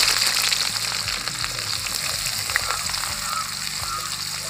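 Sliced onions sizzling steadily in hot oil with mustard seeds in an aluminium kadai, with small crackling ticks through the hiss. Near the end they are stirred with a wooden spatula.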